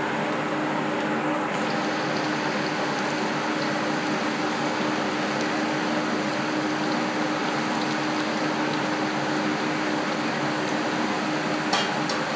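Battered chicken pakoda pieces deep-frying in a kadai of hot oil: a steady sizzle with a low steady hum under it, and a short knock near the end.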